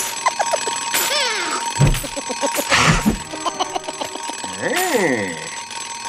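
Alarm clock bell ringing steadily, with a few sliding tones and sharp knocks from the film's comic sound effects.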